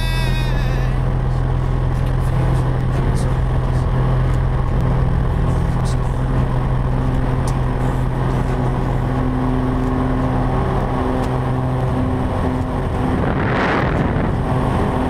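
Light single-engine aircraft's piston engine and propeller running steadily as the plane rolls along a grass airstrip on its takeoff run, with a rush of wind swelling near the end. Background music fades out in the first second.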